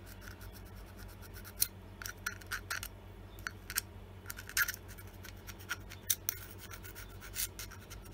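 A small steel pick scraping crud from the teeth of a Stihl MS170 chainsaw's clutch drum sprocket, in short irregular scratches.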